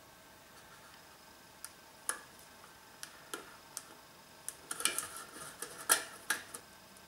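Light scattered clicks and taps of a marker pen, a flexible ruler and fingers against the side of a thin metal 5-litre beer keg while a cutting line is drawn. Sparse at first, they come quicker in a short flurry about two-thirds of the way through, with the sharpest tap just after.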